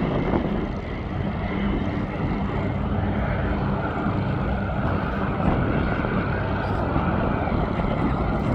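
Jet airliner engines running, a steady rushing noise with a faint whine that comes in about halfway through.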